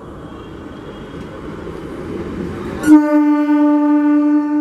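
Electric multiple unit (EMU) local train approaching, its rumble growing louder, then sounding its horn about three seconds in: one loud, steady, long blast.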